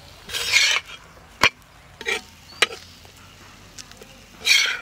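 Flat metal spatula scraping across a metal tawa under a fried paratha: two short rasping scrapes, one about half a second in and one near the end, with a sharp clack and a few light taps between them.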